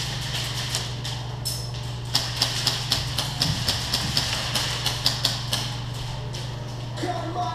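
Airsoft gunfire: a string of sharp snapping clicks, several a second at uneven intervals, over a steady low hum.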